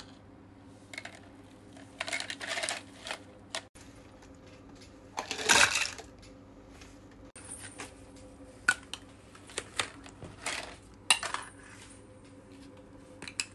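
Small plastic toy fish clattering in irregular bursts as they are handled and dropped into plastic buckets. There is a louder, longer clatter about five and a half seconds in as a bucketful of the toys is tipped out into the pool.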